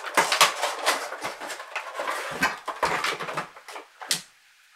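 Cardboard Funko Pop! boxes being opened and their clear plastic inserts pulled out: a run of crinkling, scraping and clicking packaging noises that stops about four seconds in.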